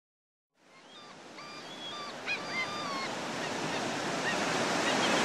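Ocean surf washing steadily, fading in from silence and growing louder, with birds calling over it during the first three seconds or so.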